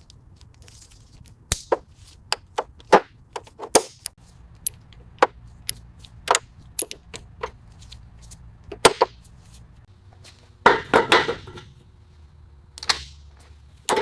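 Irregular sharp clicks and knocks from hand tools and parts being handled during car restoration work, with a denser scraping burst about eleven seconds in.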